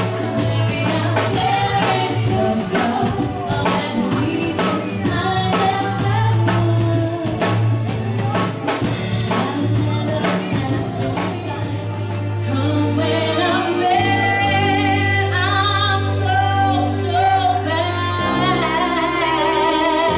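Live dance band playing with singing: a steady beat for the first twelve seconds or so, then it drops away and long held sung notes carry on over a bass line.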